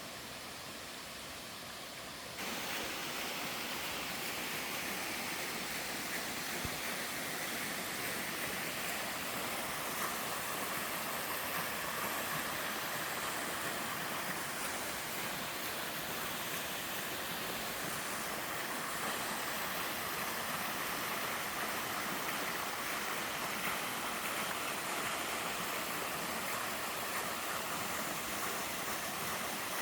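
Water of a mountain-valley waterfall and stream rushing steadily, as a constant hiss. It gets abruptly louder about two seconds in.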